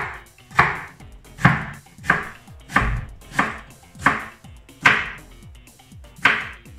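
Kitchen knife chopping peeled raw potato on a wooden chopping board: about nine slow, evenly spaced strokes, each a sharp knock of the blade through the potato onto the board.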